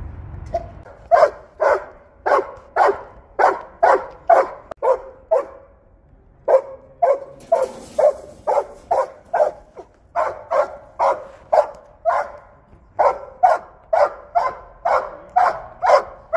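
Belgian Malinois barking over and over, about two barks a second, in runs broken by short pauses.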